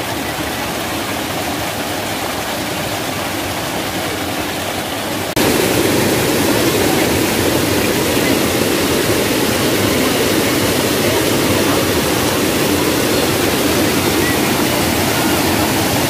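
Waterfall: a steady rush of falling water. About five seconds in it abruptly becomes louder and fuller.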